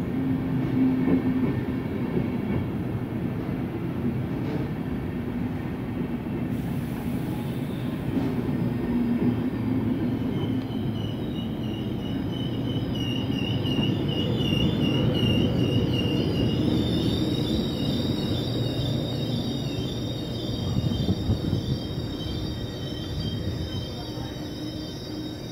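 DB Intercity coaches and their class 101 electric locomotive rolling past a platform, with steady rolling noise from wheels on rails. From about ten seconds in a high warbling squeal joins, and several high steady tones hang on as the train moves away.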